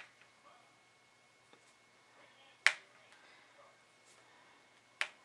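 Three sharp clicks, about two and a half seconds apart, from a diamond painting drill pen tapping resin drills as it places them one at a time.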